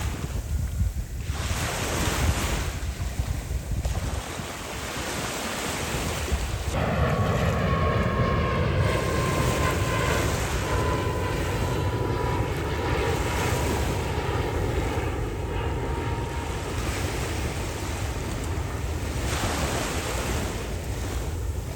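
Surf washing onto a sandy beach in swells every few seconds, with wind buffeting the microphone. From about seven seconds in, an engine's rumble and thin whine join for about ten seconds, the whine slowly falling in pitch.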